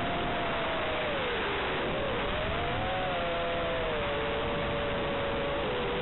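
Electric motors and propellers of an FPV quadcopter in flight: a two-note whine that drifts down and back up with the throttle, over a steady hiss of air rushing past.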